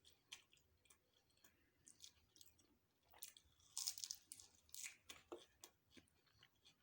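Faint close-miked eating sounds: chewing and wet mouth clicks while eating spicy chicken and paratha, with a louder run of squishy chewing and biting about four seconds in.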